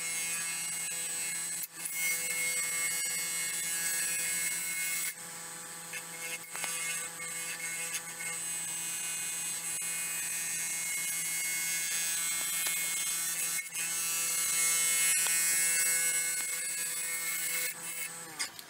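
Wood lathe running with its motor humming while a hand-held turning tool cuts cured epoxy resin on a spinning bowl blank, throwing off stringy shavings. The cutting noise is steady and drops out briefly a few times.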